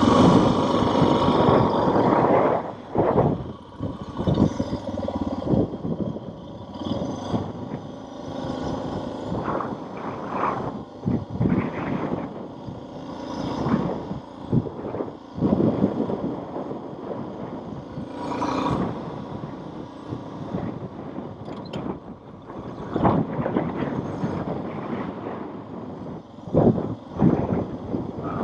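Motorcycle riding at road speed: the engine running under a heavy rush of wind that buffets the microphone in uneven gusts.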